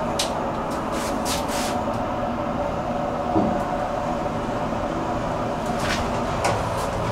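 SMW inclined elevator cab travelling along its inclined track: a steady mechanical hum with light clicks and rattles, and a single knock about three and a half seconds in.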